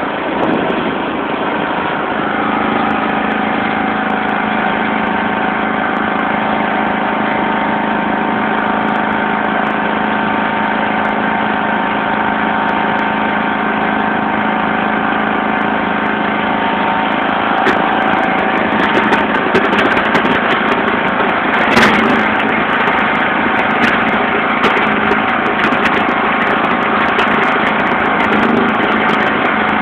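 John Deere LX176 lawn tractor engine running steadily while the tractor pushes snow with its front blade. From about halfway through, irregular scraping clicks and knocks join in, the sharpest one a little past two-thirds of the way.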